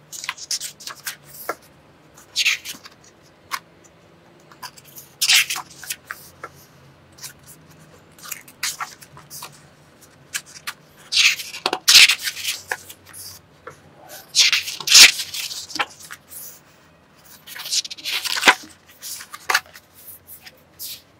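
Paper pages of a paperback book being turned by hand: repeated rustles and swishes of paper, with louder page flips about five, eleven, fifteen and eighteen seconds in.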